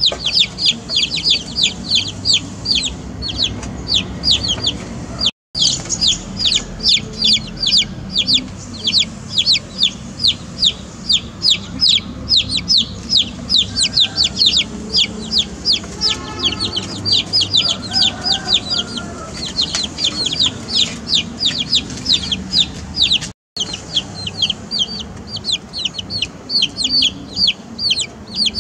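A group of young chicks peeping continuously: a rapid, unbroken stream of high, falling cheeps, several a second. The sound cuts out for an instant twice.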